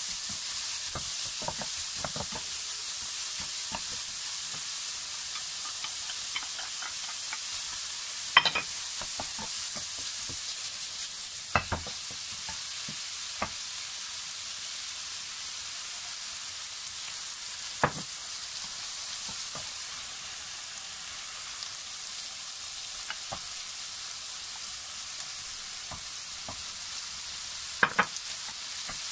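Egg and diced vegetables sizzling in a wok as a wooden spatula stirs them: a steady frying hiss with scattered knocks of the spatula against the pan, the sharpest about eight and twelve seconds in and again near the end.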